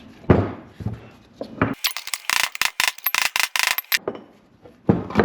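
Hammer striking a punch to drive an old bearing race out of a Chevy C10 front hub, steel on steel. A few separate knocks come first, then a quick run of ringing strikes, about five a second, for some two seconds. One more knock comes near the end. The race is moving and almost out of the hub.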